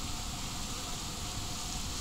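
Steady, even hiss of sea water washing against a rocky shoreline, with no distinct events.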